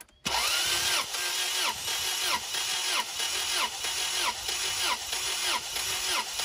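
Honda H22 engine being cranked over by the starter without firing, during a compression test on cylinder three. A whine dips and recovers in an even rhythm about nine times, about every two-thirds of a second.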